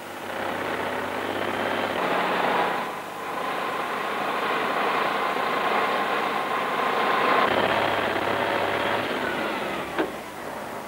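Tatra 813 heavy truck driving, its air-cooled V12 diesel engine and running gear giving a steady rumbling noise, with a thin whine joining for a few seconds in the middle. A short sharp click about ten seconds in.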